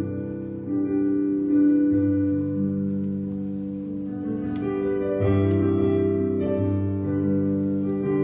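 Slow instrumental music on a keyboard: sustained chords that change every second or two, with a few higher notes picked out over them.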